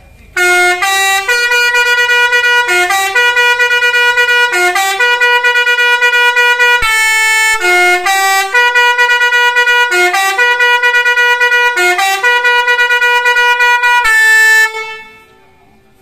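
Six-trumpet telolet basuri bus air horn playing a loud multi-note tune, each note change starting with a short upward scoop in pitch, the phrase repeating for about fourteen seconds before it stops.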